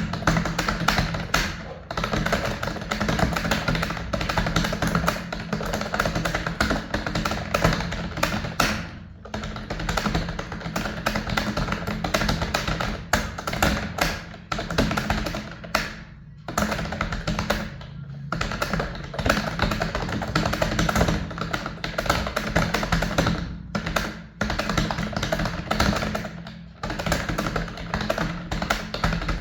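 Fast typing on a computer keyboard: a continuous rapid clatter of keystrokes broken by a few short pauses, with music underneath.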